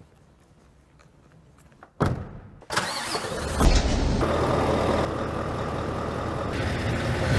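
A Scania truck engine starting about two seconds in, catching with a low surge, then running steadily at idle.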